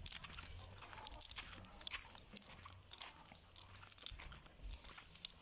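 Faint, irregular crunching and scuffing of footsteps on a gritty concrete yard.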